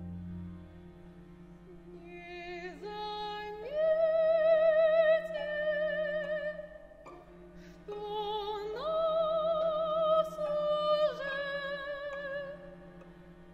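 Soprano singing two long phrases with wide vibrato over a quiet held low note from the chamber orchestra. The deep bass note of the cellos and double basses heard at the start fades away within the first second.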